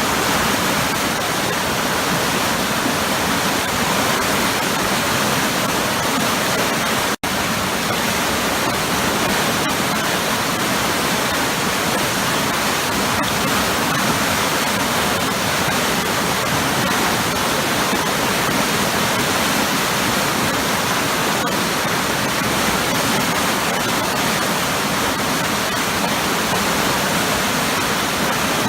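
Waterfall pouring into heavy, churning eddies: a loud, steady rush of water. The sound breaks off for an instant about seven seconds in.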